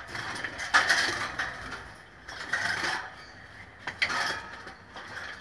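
Canaries chattering in uneven bursts.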